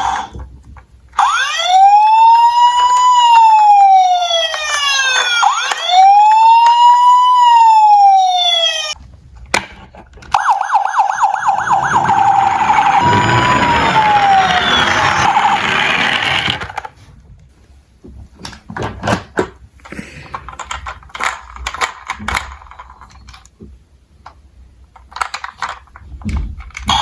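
A siren wailing up and down in two slow sweeps of about four seconds each. It is followed by a fast pulsing siren over a noisy, rattling stretch, then scattered faint clicks and rattles.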